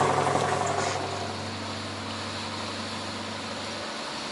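Charter fishing boat's engine running with a steady low drone over a hiss of wind and water as the boat gets under way; the drone cuts off near the end.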